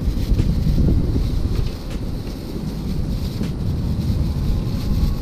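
Wind buffeting the action camera's microphone, heavier for the first second and a half or so, then steadier, with a few faint clicks.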